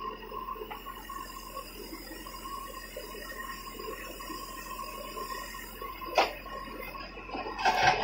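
Terex backhoe loader working its rear bucket in rubble, a steady mechanical hum with a thin whine, one sharp knock about six seconds in and louder clatter near the end.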